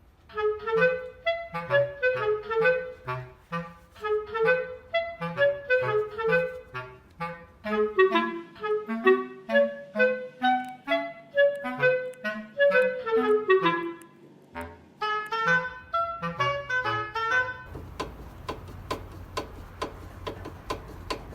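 Background music: a lively melody of short notes over a bass line, with a brief pause about fourteen seconds in. Near the end a steady hiss with evenly spaced ticks runs under the music.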